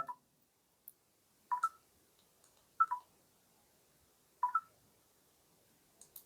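Vivo Y200 smartphone's short two-note lock-screen sound effect, a higher note falling to a lower one, played three times about one and a half seconds apart as the phone is locked and unlocked by face unlock, with a few faint clicks in between.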